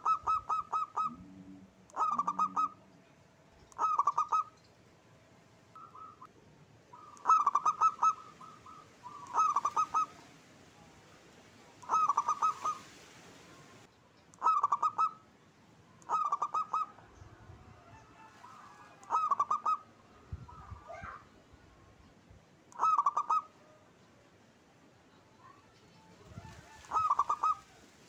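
Zebra dove (perkutut) cooing: a string of short phrases of rapid stuttering notes, repeated every two to four seconds.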